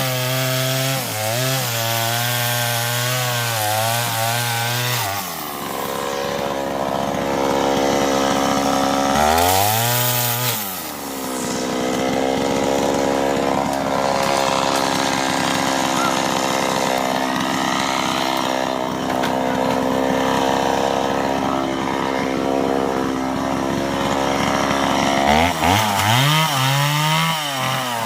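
Chainsaw running at full throttle for the first five seconds, dropping back, revving up again around ten seconds, then running steadily at a lower speed before revving up twice near the end.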